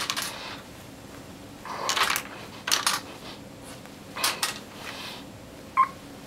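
Short clicks and clinks of hard plastic in small groups a second or so apart, from skin-prick test applicators being handled and pressed onto the skin, with a brief sharp tone near the end.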